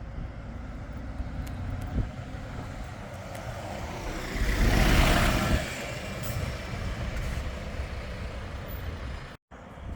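A vehicle passes close by in street traffic, swelling to its loudest about five seconds in and then fading, over a steady background of traffic noise. A short knock sounds about two seconds in.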